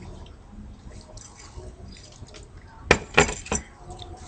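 Three sharp clicks in quick succession about three seconds in, over a low rumble.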